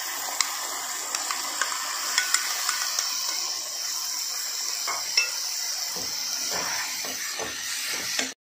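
Chopped tomatoes, onions and ginger sizzling in butter in a kadhai, stirred with a spatula that clicks and scrapes against the pan. The sound drops out abruptly just before the end.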